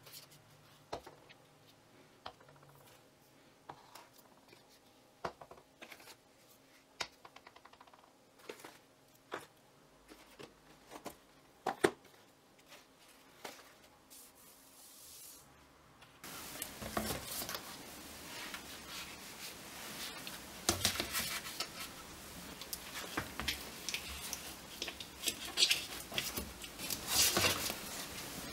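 Plastic shampoo and shower-gel bottles set down one at a time on a wooden floor: light scattered knocks and clacks, with one louder knock about twelve seconds in. About sixteen seconds in a steady hiss comes up, with dense rustling and clattering as bottles are pushed into a woven plastic basket.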